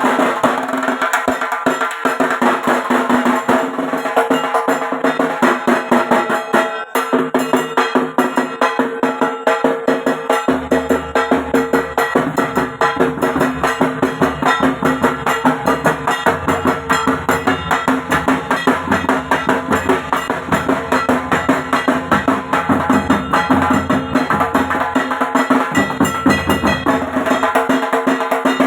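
Bengali dhak drums beaten with wooden sticks in a fast, continuous rhythm of dense strokes. About ten seconds in, a deeper low tone joins and carries on under the drumming.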